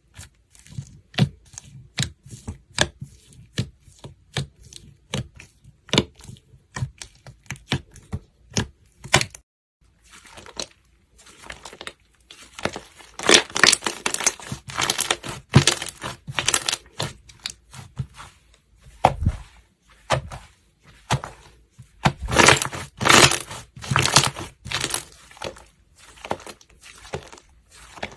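Slime being squeezed and stretched by hand: a run of irregular sticky clicks and pops, thickening into denser crackling clusters about halfway through and again later.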